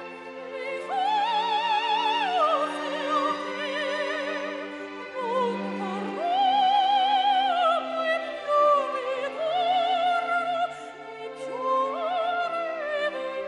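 Operatic singing: a high voice in the soprano range holding long notes with wide vibrato, over sustained orchestral accompaniment.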